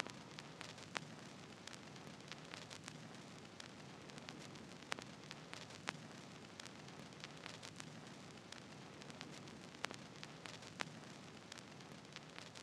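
Faint steady hiss with scattered, irregular clicks and crackles, like surface noise on a record.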